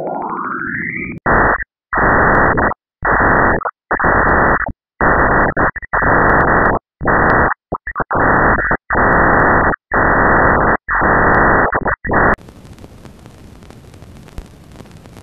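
NASA spacecraft recording played as sound. A rising whistle-like tone ends about a second in. About ten loud blasts of harsh static follow, each cut off sharply by a short silence. Near the end it changes to a quieter, steady hiss.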